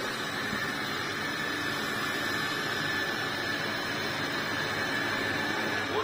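ILIFE T20s robot vacuum cleaning: a steady fan noise with a steady high whine.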